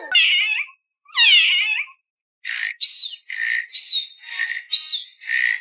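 A young monkey's high, wavering squeals, twice, then a run of short, even high chirps at about three a second.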